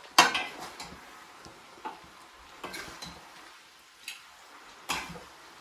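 Spoon clinking and scraping against a pan and plate as food is served out onto a serving plate: a sharp clink just after the start, then a few lighter clinks spread out, with another sharp one near the end.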